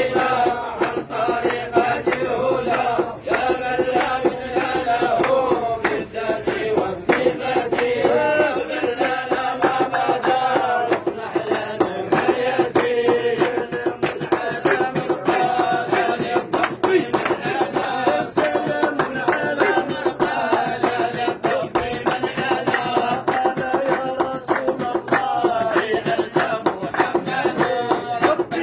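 A group of men chanting Sufi madih, praise songs for the Prophet, together in long, drawn-out lines, over a fast, steady percussive beat.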